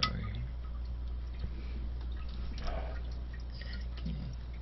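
Small plastic clicks and taps as a toilet tank lever's lock nut and mounting parts are worked by hand, over a steady low hum. There is a sharper click at the start and a short rustle about two and a half seconds in.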